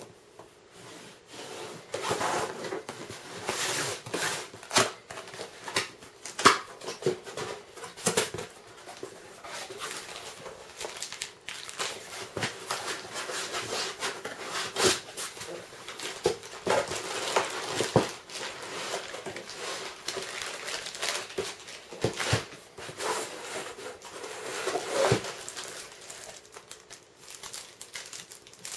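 Hands handling packaging: a cardboard box is turned and its flaps are opened, a foam sheet is pulled out, and plastic bags crinkle, with frequent small knocks and scrapes.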